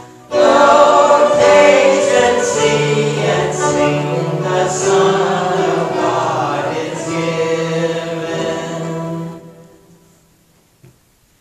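A small group of men's and women's voices singing the last lines of a hymn with instrumental accompaniment, ending on a held note about nine seconds in.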